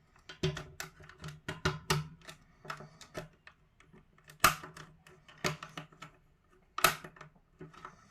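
Plastic trim of a PS5 controller clicking and snapping as it is pried apart: a string of irregular sharp plastic clicks, with two louder snaps about four and a half and seven seconds in.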